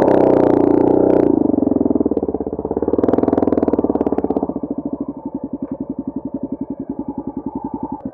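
Motorcycle engine running under throttle with a couple of surges, then dropping back about four and a half seconds in to a lower, evenly pulsing run, like an idle.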